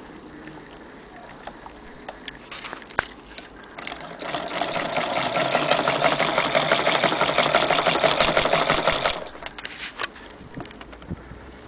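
Antique Victorian hand-crank sewing machine running, a rapid even clatter of its needle mechanism stitching through denim for about five seconds, starting about four seconds in. A few light clicks of handling the machine come before and after.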